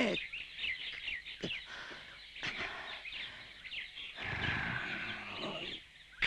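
Birdsong ambience in a cartoon soundtrack: quick, high chirps repeating. About four seconds in, a man's low, strained grunt comes in over them for a second or two.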